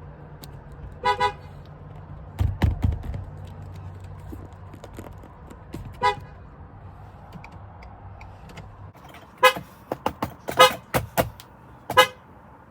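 Car horn honking in short toots: a quick double honk about a second in, a single toot around six seconds, then a run of several rapid honks near the end. A steady low engine hum sits under the first part and stops about nine seconds in, and a couple of loud thumps come about two and a half seconds in.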